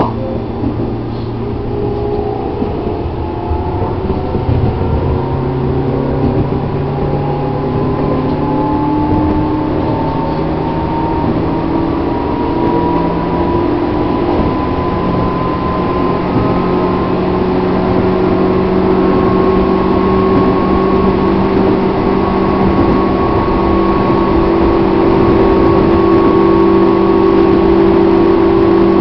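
JR East 205 series electric train heard from inside the car: traction motor and gear whine over the rumble of wheels on rail, the whine slowly rising in pitch and getting louder as the train gathers speed.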